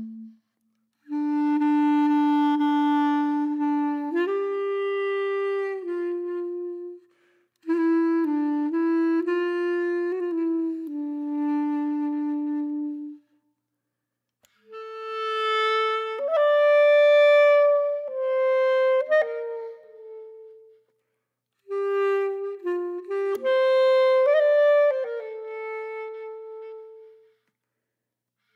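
Background music: a single melody line on a wind instrument, played in four phrases with short silences between them.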